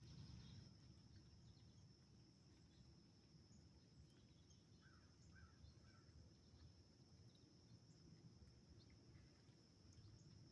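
Faint outdoor ambience: a steady high-pitched insect drone, like crickets, over a low rumble, with a few faint bird chirps about halfway through.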